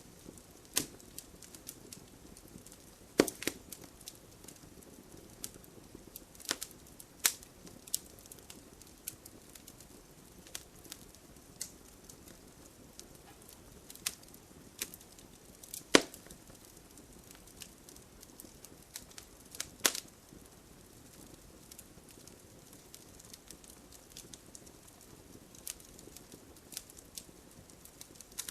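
Wood fire in a fireplace crackling, with irregular sharp pops over a faint hiss. The loudest pops come about 3, 16 and 20 seconds in.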